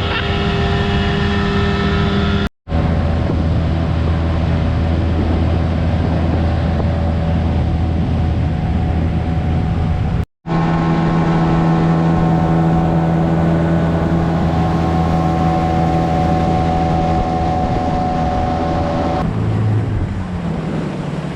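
Outboard motor on a small aluminium tinny running steadily at speed, a constant drone with a hiss over it. The sound cuts out briefly twice, and near the end the engine note drops as it eases off.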